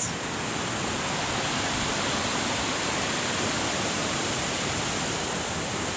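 Steady, even rush of water cascading down a creek or waterfall.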